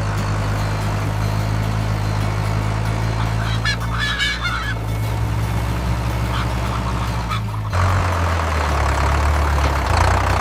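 Tractor engine running steadily, its note dropping lower about three-quarters of the way through, with a poultry call about four seconds in.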